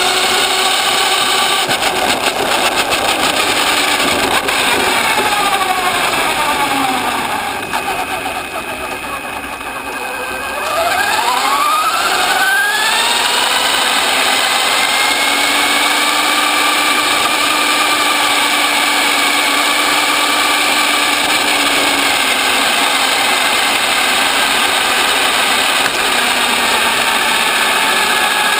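Radio-controlled buggy's motor and drivetrain whining, heard from a camera mounted on the car. The pitch falls as the car slows over the first few seconds and grows quieter, then sweeps up steeply as it accelerates, and holds a steady higher whine through the second half.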